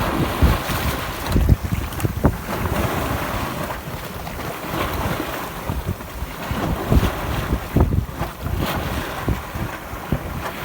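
Sea waves washing in a steady rush, with wind buffeting the microphone in irregular low gusts.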